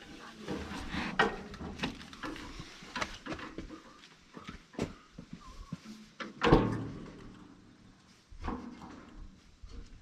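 Irregular knocks and clunks of metal parts being handled, about half a dozen spread out, the loudest about six and a half seconds in.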